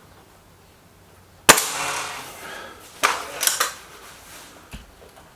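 Stoeger RX20 S2 break-barrel air rifle firing a single shot, a sharp report about a second and a half in that fades over about a second. About a second and a half later come a few quick clicks and knocks close together.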